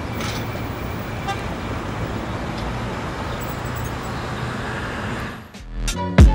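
Steady street traffic noise, a low rumbling hum, which fades out about five and a half seconds in. Hip-hop-style music with heavy drum-machine beats and bass cuts in just before the end.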